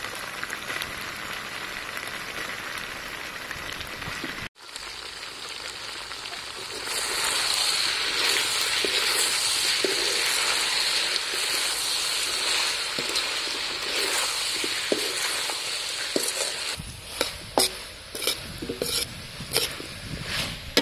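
Pig's tongue and pineapple chunks sizzling as they fry in a steel wok, the sizzle cutting out for an instant about four seconds in and growing louder about a third of the way through. Near the end, a metal spoon scrapes and clicks against the wok as the mixture is stirred.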